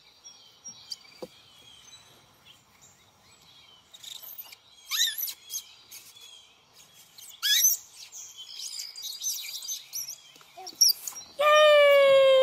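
Backyard birds chirping, with two loud rising chirps about five and seven and a half seconds in. Near the end comes a loud, long voice note that slowly falls in pitch.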